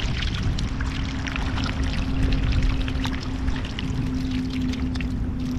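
Shallow water splashing and pouring, full of small crackling splashes, with a steady low hum that starts about half a second in.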